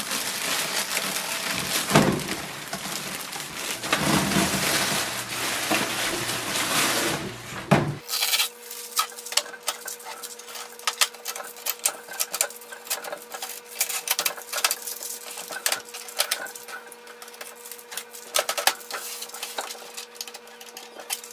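Plastic wrapping crinkling and rustling as a printer is pulled out of its bag in a cardboard box. About eight seconds in the sound changes abruptly to quieter scattered clicks and rustles of hands stripping packing tape from the printer's plastic case, over a faint steady hum.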